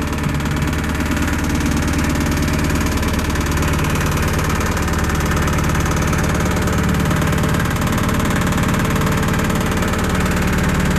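Kubota KX040 mini excavator's diesel engine running steadily at an even pace.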